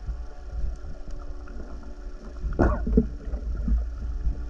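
Underwater audio from a camera moving through water: a steady low rumble of water against the housing, with one brief louder swish a little past halfway.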